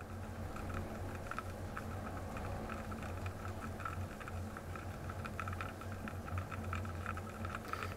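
Underwater ambience heard through a GoPro in its housing: a steady low hum with many faint, irregular crackling clicks.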